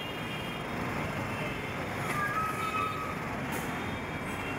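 Steady road traffic noise: a continuous hum of passing vehicles on a busy city street.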